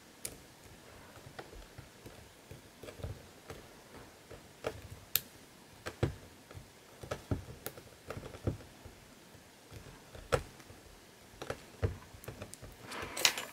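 Faint, irregular light clicks and taps of fingers and a block of polymer clay against a hard, smooth work board as the clay cane is pressed and shaped by hand.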